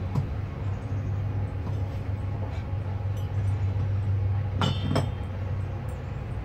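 Two light metal clinks in quick succession about two-thirds of the way through, from the steel washers and pulley being fitted by hand onto a mower deck's spindle shaft. A steady low hum runs underneath.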